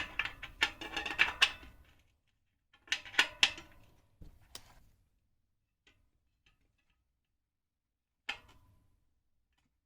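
Spokes of a carbon road-bike wheel plucked and the new spoke being tightened: scattered short metallic clicks and twangs, a cluster about three seconds in and one with a brief ringing tone near the end. The plucking checks the new spoke's pitch, which is still lower than the others while its tension is brought up.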